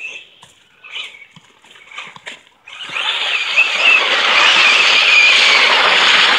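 Brushless-powered Axial SMT10 RC monster truck spinning doughnuts in slush, its tyres churning and spraying slush in a loud hiss with a wavering motor whine on top. It starts suddenly about three seconds in, after a few light scattered splashes.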